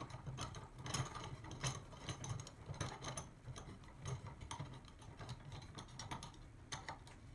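Faint, irregular clicking and ticking of metal on metal as a steel C-clamp's screw is turned down onto the handles of a pair of diagonal cutters, to squeeze them shut on a rusted bolt.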